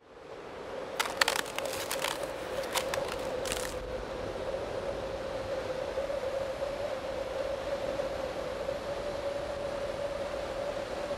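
Intro sound effect of ice crackling: a quick run of sharp cracks and crackles in the first few seconds, over a steady hiss and a single held tone that carries on throughout.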